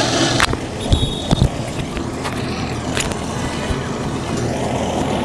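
Spectators murmuring around an outdoor football pitch over a steady low engine hum, with two sharp knocks a little after a second in.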